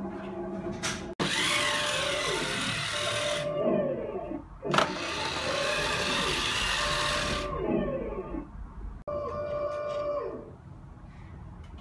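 Remote-control Leopard 2A6 model tank running: a steady mechanical drone with a whine that glides up and down, broken twice by a hiss lasting two to three seconds, with a sharp click about five seconds in.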